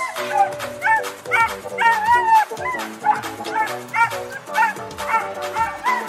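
A dog yipping in short, high barks about twice a second, over background music.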